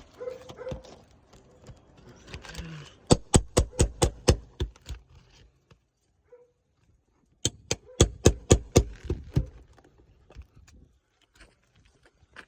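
Hand tools striking on an asphalt shingle roof: two quick runs of about eight sharp hammer blows each, roughly four a second, with a pause between.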